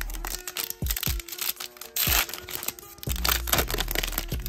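Foil wrapper of a Topps Finest trading-card pack crinkling and tearing as it is pulled open by hand, with a louder burst about two seconds in, over background music.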